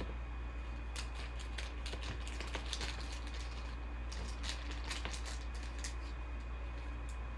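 Trading cards and foil pack wrappers being handled, a quick irregular run of light clicks and rustles from about a second in until near the end, over a steady low hum.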